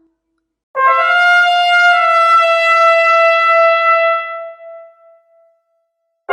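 A single trumpet-like brass note held for about three and a half seconds, then fading away.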